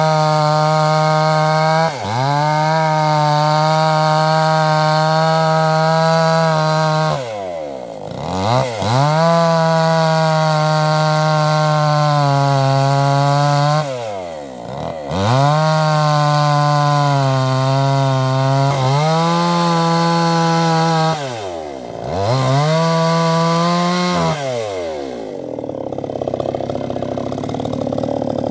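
Two-stroke chainsaw at full throttle cutting into the trunk of a sonokeling (Indian rosewood) tree. Three times the revs fall away and climb again, and after a fourth burst of cutting it settles to idle near the end.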